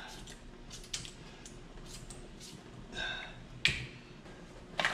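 Eggshells being pushed off a metal baking sheet into a pot of boiling water: scattered light clicks and taps, the sharpest about three and a half seconds in.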